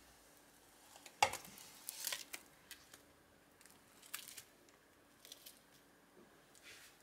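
A sharp knock about a second in, then a few short scrapes and crinkles: a frying pan and spatula against a plate covered in cling film as a thin omelette is slid onto it and smoothed.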